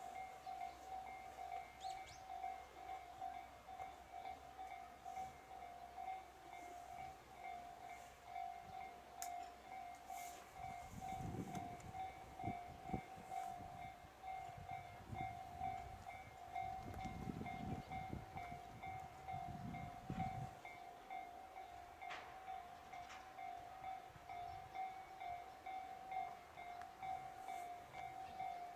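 Railway level-crossing alarm ringing with a steady, pulsing electronic tone, the warning that a train is approaching. Gusts of wind rumble on the microphone for several seconds in the middle.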